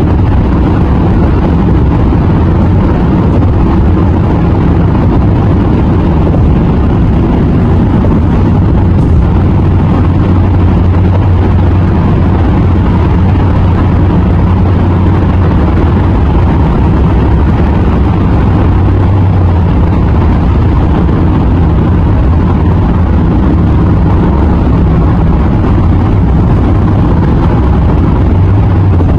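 Steady, loud rumble of a car driving on a freeway, heard from inside the cabin: tyre and road noise, strongest low down.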